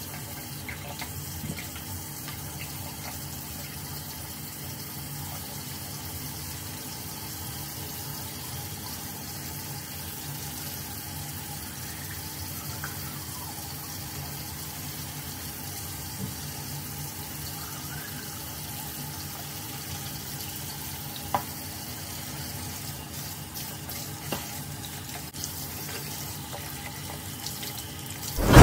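Water running steadily from a tap, with a couple of faint clicks and a single loud knock near the end.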